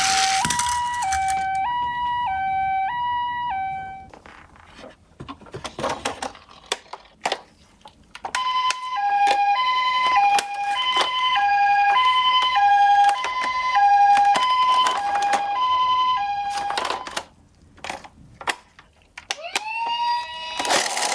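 Toy ambulance minicar sirens: an electronic two-tone siren alternating between a higher and a lower pitch stops about four seconds in, followed by a few seconds of small plastic clicks and knocks. A second two-tone siren sounds from about eight seconds to near the end, with clicks over it, and just before the end a wailing siren starts, rising in pitch.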